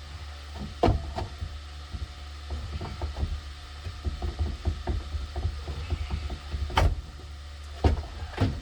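Parts and tools being handled while a car's heater core is worked loose: scattered light clicks and clunks, with a few sharper knocks in the second half, over a steady low hum.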